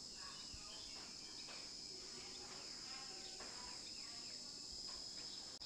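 Faint, steady high-pitched insect chorus, with a few faint scattered short chirps.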